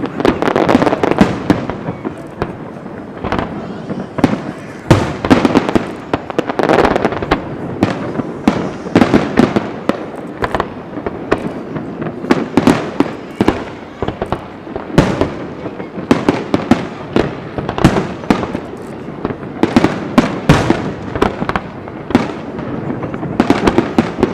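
Fireworks display: a continuous barrage of sharp bangs, often several a second, with crackling between them.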